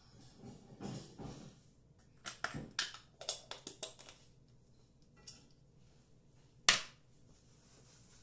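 Small clicks and taps of a cosmetic jar being handled and its lid closed, then one louder sharp clack a little over two-thirds of the way through.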